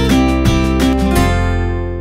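Background music of a strummed acoustic guitar. A final chord about a second in is left to ring and fade away.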